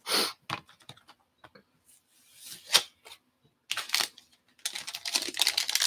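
Light clicks and short rustles of cards being handled, then, from near the end, a foil trading-card pack wrapper crinkling steadily as it is handled.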